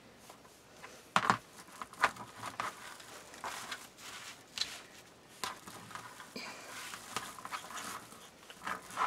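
Red deco mesh with shiny metallic strands crinkling and rustling as it is bunched by hand and pushed onto a wire wreath frame, in uneven spurts with a few sharper crackles.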